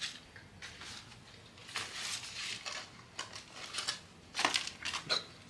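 Paper takeout bag and food wrappers rustling and crinkling as they are handled, in several short bursts.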